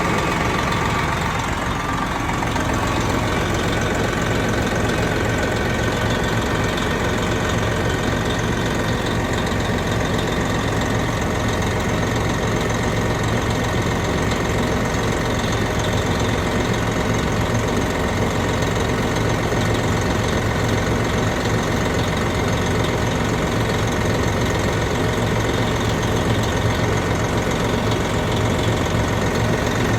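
Big-rig truck's diesel engine idling steadily, run after a failed exhaust clamp between the turbo outlet and the exhaust pipe was replaced, to check for exhaust leaks.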